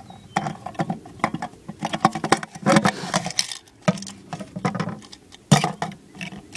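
Irregular light clicks and knocks of empty aluminium soda cans being handled and stacked on a plastic bucket as shooting targets, with a louder knock about five and a half seconds in.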